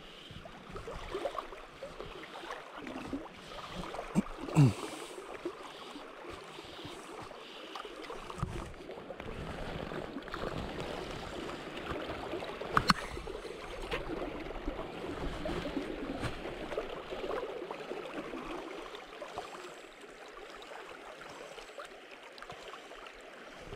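River water lapping and gurgling around the legs of a wading angler, with a couple of brief knocks, the sharpest one about halfway through.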